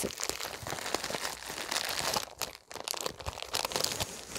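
Wrapping of a small package crinkling as it is handled and opened, a dense run of quick crackles with a short break a little past halfway.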